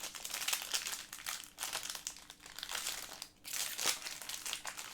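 Plastic packaging crinkling in irregular crackles as trading cards are unwrapped and handled.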